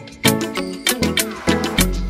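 Background music with a steady, upbeat Latin-style beat, with sharp percussion hits and pitched instrument notes.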